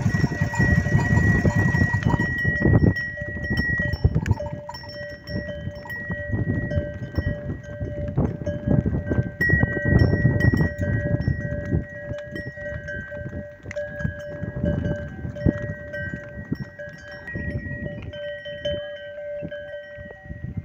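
Neck bells on walking Kankrej cattle ringing in a continuous jangle of several held tones, over uneven low rumbling noise.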